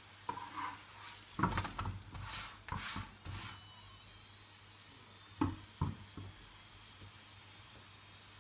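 A paratha being handled and shifted on a flat tawa: rough scraping and rustling for about three seconds, then two sharp knocks half a second apart, over a faint hiss.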